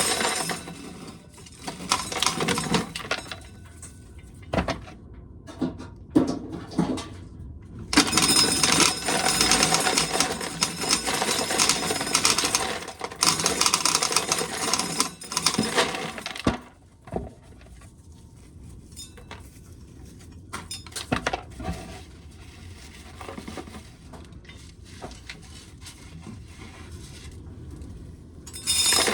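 Dried corn being shelled off the cob, the kernels rattling and clinking down in dense bursts, longest from about a quarter of the way in to just past halfway, then only scattered clicks of single kernels.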